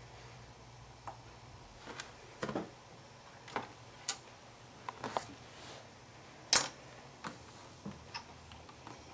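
Scattered, irregular clicks and knocks of plastic Lego parts being handled, with one sharper knock about two-thirds of the way through.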